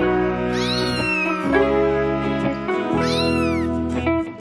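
A very young kitten meowing, high-pitched cries that rise and then fall, twice, over background music.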